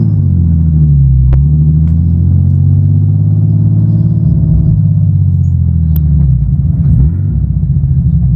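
BMW E36's engine running while the car is driven, heard from inside the cabin as a steady low drone. Its pitch dips about a second in and then holds, with a couple of light clicks.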